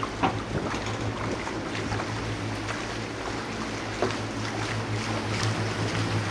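Leopard 45 catamaran's diesel engines running with a steady low drone as the boat motors along, over wind and water noise, with a couple of light knocks.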